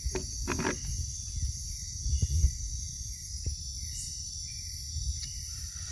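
Steady high-pitched chorus of night insects, with irregular low bumps and rustles close to the microphone, the loudest about two seconds in.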